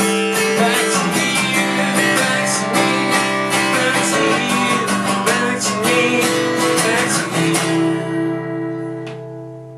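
Steel-string acoustic guitar strummed with a pick through the song's closing bars. About seven and a half seconds in, the final chord is left to ring and fades away, with a faint click as it dies.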